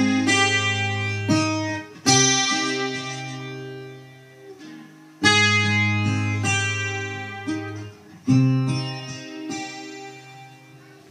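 Acoustic guitar playing a slow intro: full chords struck about every three seconds, each left to ring out and fade, with a few lighter notes in between.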